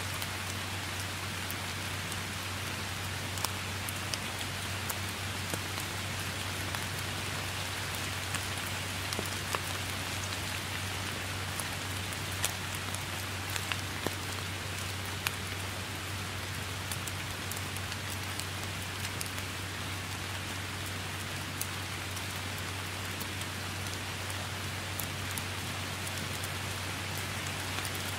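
Steady rain falling on grass and foliage: an even hiss dotted with frequent sharp, close drop hits, over a steady low hum.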